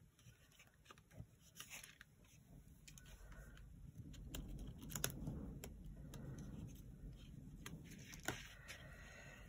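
Faint rustling of cardstock with scattered light ticks as small paper pieces are handled and pressed with a pick tool; the rustling picks up about four seconds in.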